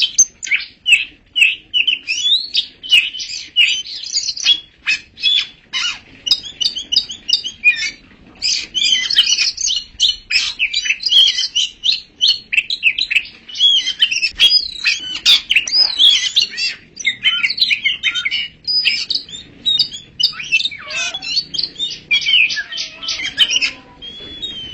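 Oriental magpie-robin (kacer) singing a loud, continuous and varied song of rapid chirps, trills and whistles, the notes changing pitch quickly with hardly a pause.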